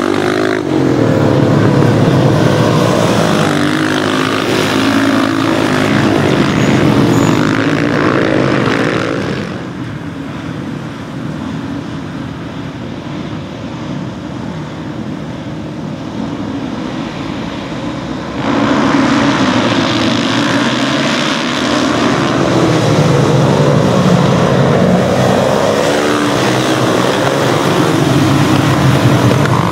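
Dirt-bike and supermoto motorcycle engines revving up and down as the bikes ride the circuit. In the middle there is a quieter stretch of several bikes idling together on a start grid. About two-thirds through the engines turn loud again with repeated rising revs.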